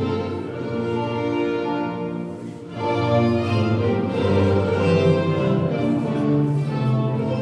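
Courante dance music played by bowed strings, a melody over a low bass line, with a short lull between phrases about two and a half seconds in.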